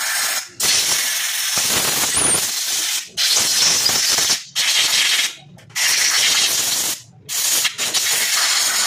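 Compressed air hissing from a hose-fed blow-gun nozzle aimed into a removed throttle body, cleaning it out. The air comes in a series of long blasts, each cut off suddenly for a moment before the next.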